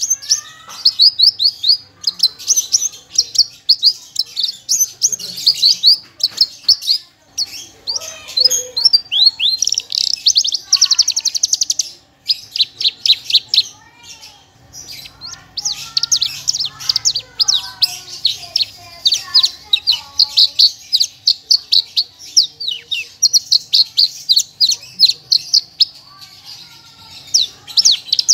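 Javan bush lark (branjangan, parva race) singing continuously. Its song is made of rapid-fire runs of high, quickly repeated notes, with a stretch of lower, warbled phrases mixed in through the middle.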